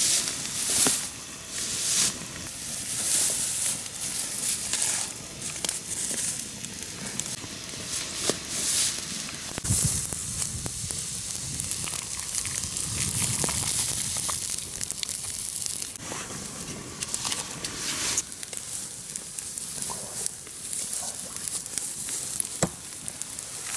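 Campfire crackling with scattered sharp pops, and pork fat (salo) sizzling as it roasts over the flames.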